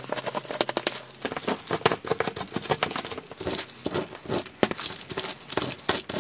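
Disposable plastic piping bags filled with buttercream crinkling as they are handled and laid down, a dense, irregular run of rustles and crackles.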